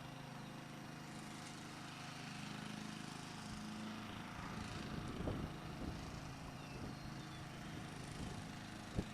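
A motor running steadily with a low hum, joined by irregular low rumbles and knocks from about five seconds in, with one sharp knock near the end.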